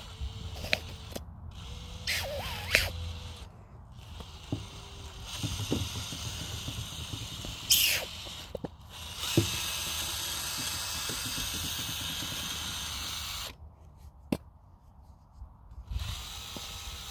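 Cordless drill spinning a board for spin painting, running in short spurts and then steadily for several seconds in the middle, with small clicks and knocks in between.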